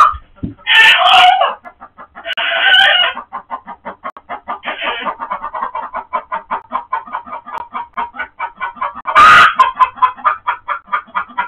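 Chickens in the coop making alarm calls at a mink attacking: several loud squawks, with rapid steady clucking in between, about six clucks a second.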